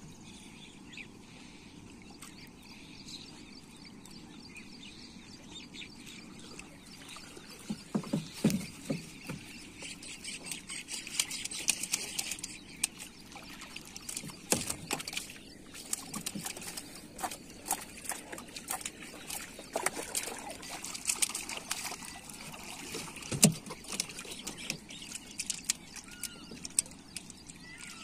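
Water trickling and splashing as a long hooked fishing line is hauled in by hand over a wooden boat's bow and a fish is taken off it. Quiet at first, then from about eight seconds in, busy with scattered clicks and knocks on the boat's planks, one of them louder near the end.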